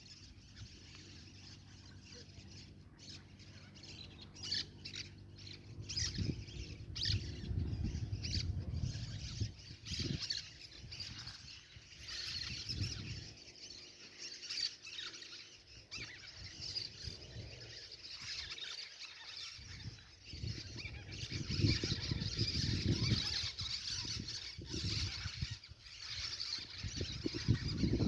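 Many wild birds chirping and squawking together in a dusk chorus, with short, overlapping calls. A low rumble runs underneath from a few seconds in.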